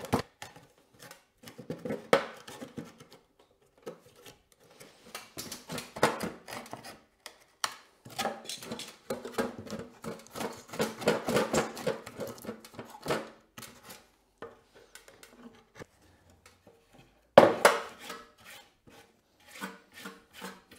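Wood chisel paring and scraping the rough floor of a half-lap joint in a pressure-treated board, in bursts of short scrapes and clicks. A louder knock comes about seventeen seconds in.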